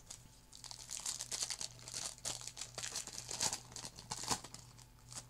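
Foil trading-card pack wrapper crinkling as it is torn open and handled: a quick run of crackles and rustles.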